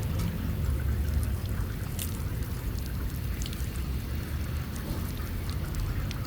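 Seawater washing and splashing at the shoreline under a steady low rumble, likely wind on the microphone, with a few sharp clicks.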